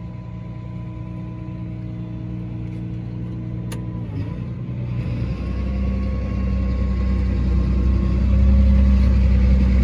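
A vehicle engine running steadily; about four seconds in its note changes and it grows louder and heavier as it picks up speed.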